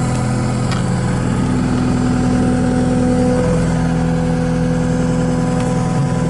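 Kubota SSV65 skid steer's four-cylinder diesel engine idling steadily, just after start-up, heard from inside the cab.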